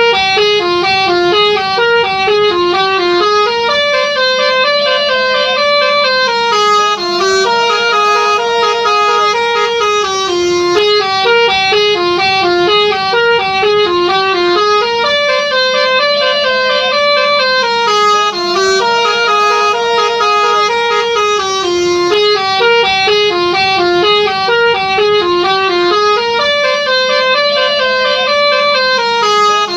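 Indonesian 'telolet' multi-tone horn playing a fast, winding melody of short stepped notes without pause, the phrase repeating over and over.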